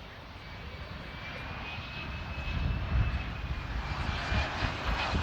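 Jet airliner's engines growing steadily louder as it approaches, a thin high whine rising over the rumble.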